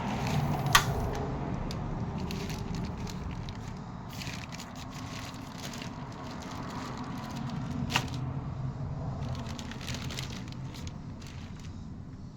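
Handling of an impact socket set in its case: rustling and scattered clicks, with two sharp clicks, one about a second in and one about eight seconds in, over a steady low hum.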